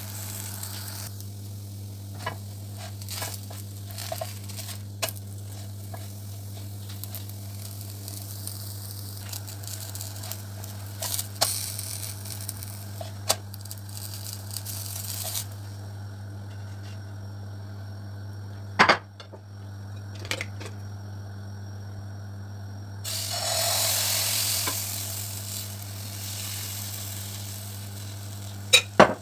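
Thin batter gözleme frying in a nonstick pan, a soft sizzle that comes and goes and is louder for a couple of seconds near the end, with sharp clicks and taps of a spatula and ladle against the pan. A steady low hum runs underneath.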